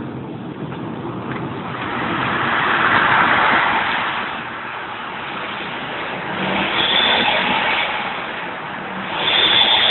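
Subaru STI's turbocharged flat-four engine and exhaust, revved up three times, with a high whistle from the exhaust rising on the later revs.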